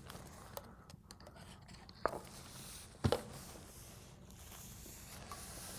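Faint rustle of a paper rag wiping the dovetail of a Hardinge lathe cross slide, with three light clicks or taps, the loudest about three seconds in.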